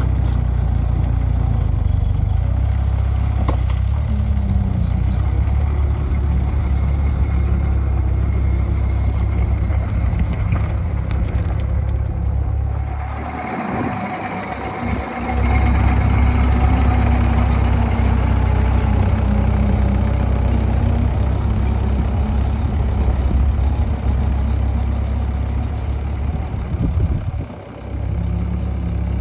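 Gehl CTL60 compact track loader's diesel engine running with a heavy low rumble. About halfway through it dips briefly, then runs louder with a higher whine on top, and dips once more shortly before the end.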